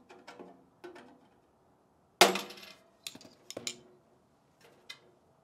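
Scattered clicks and clinks of a screwdriver and a rubber power cord being handled on a steel workbench, the loudest a sharp metallic clink with a short ring about two seconds in.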